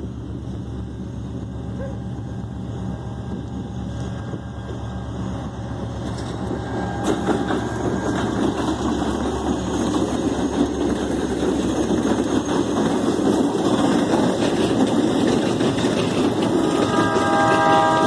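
Three GT22 CUM diesel-electric locomotives hauling an empty grain train approach and pass close by: their engine drone grows steadily louder, then gives way to the rumble and rattle of the hopper wagons rolling past. A brief cluster of high tones sounds near the end.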